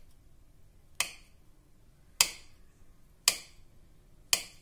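A knife cutting through boiled gram-flour gatte and clicking against the plate beneath, four sharp taps about a second apart.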